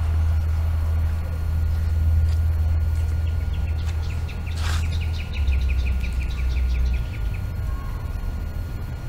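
A bird calling a rapid, evenly spaced series of high chirps for about four seconds, starting around the middle, with one brief sharper sound as it begins. A steady low rumble runs underneath.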